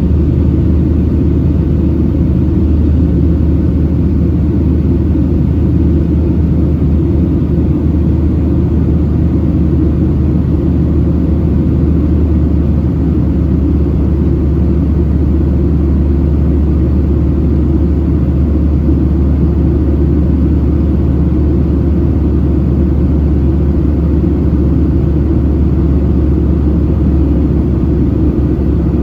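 Steady cabin drone of a Boeing 737-700 in flight, heard from a passenger seat: a loud, unchanging low rumble of its CFM56-7B jet engines and airflow.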